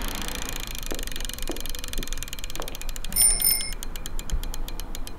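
Bicycle freewheel hub ticking rapidly as the wheel spins, the clicks slowing towards the end, with one short bicycle bell ring about three seconds in.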